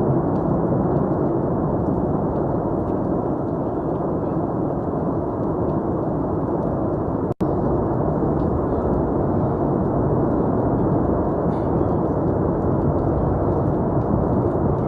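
Steady low rumbling noise with no distinct events, cutting out for an instant about seven seconds in.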